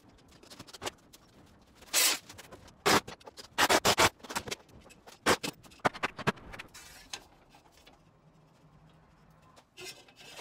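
A perforated steel mounting rail scraping and knocking against a tiled wall as it is held up and positioned: a run of short, sharp scrapes and clacks, thickest in the middle, then a quieter spell and a brief scrape near the end.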